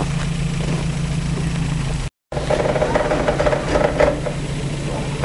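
Off-road 4x4 engine idling steadily. The sound cuts out completely for a moment about two seconds in, at an edit, then engine noise continues with a rougher rumble and a few clicks.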